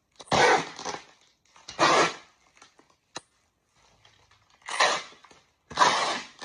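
Bubble wrap around a package crinkling and rustling in four short bursts as hands press and handle it.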